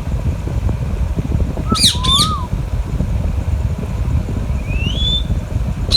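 Parakeet giving two sharp, quick squawks about two seconds in, then a short rising whistle near the end, over a steady low rumble.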